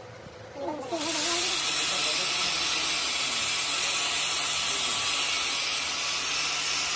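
Angle grinder's abrasive disc grinding down the weld bead on a repaired steel worm shaft. The grinding starts about a second in and then runs steadily, loud and hissing.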